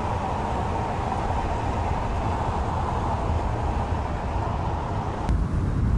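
2015 Volkswagen Touran driving at road speed: a steady low rumble of engine and tyre noise. About five seconds in, the sound changes abruptly to a rougher, lower rumble.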